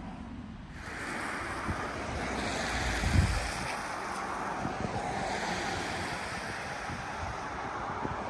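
Wind rushing across the microphone, growing stronger about a second in, with one loud low buffet of a gust about three seconds in.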